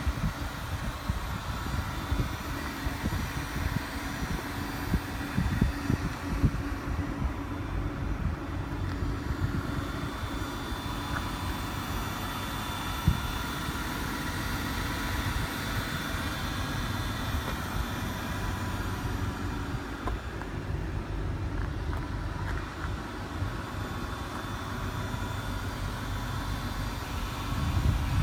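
Wind rumbling irregularly on the microphone over a steady low hum of vehicle noise.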